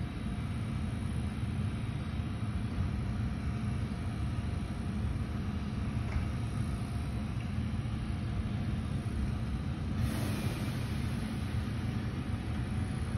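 JR Kyushu 787-series electric train running slowly past: a steady low rumble, with a brighter hiss rising about ten seconds in.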